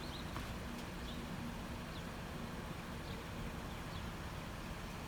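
A low, steady hum that wavers slightly, heard outdoors and taken for a strange noise from the sky, with faint short bird chirps over it.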